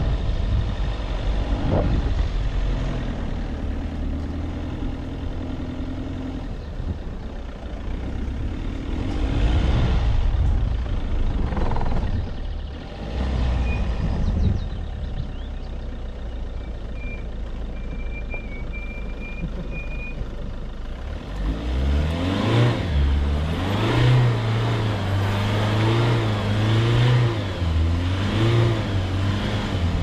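Citroën C8 minivan driving along a rough grassy dirt track: engine running with a low rumble from the tyres and body over the uneven ground. From about twenty-two seconds in, the engine revs rise and fall.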